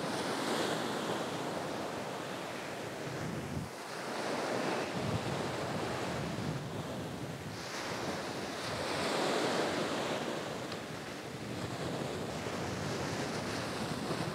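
Ocean surf breaking and washing up a sandy beach, swelling and fading every few seconds as each wave comes in.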